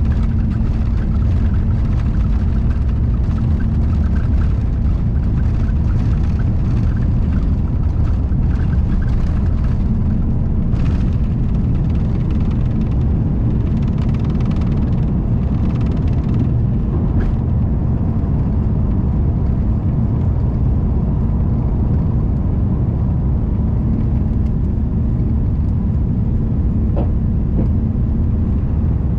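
Airbus A350 taking off, heard inside the cabin: its Rolls-Royce Trent XWB jet engines at takeoff thrust make a loud, steady low rumble with a steady hum as the plane rolls down the runway and lifts off.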